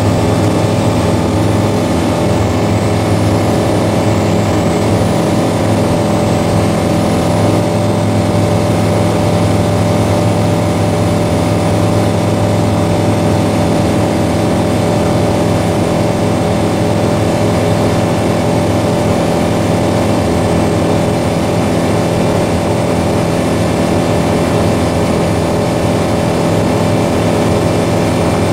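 The piston engine and propeller of an Aero AT-3 light aircraft, running steadily at cruise power and heard from inside the cockpit.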